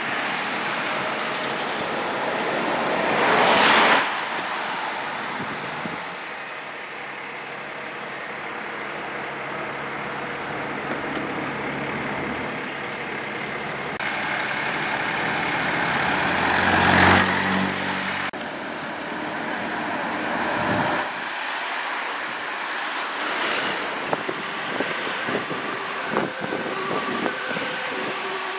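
Road traffic with emergency vehicles' engines running and passing. Two vehicles pass close and loud, one about four seconds in and one about seventeen seconds in, the second with a deep heavy-truck engine note. The sound breaks off and changes abruptly several times.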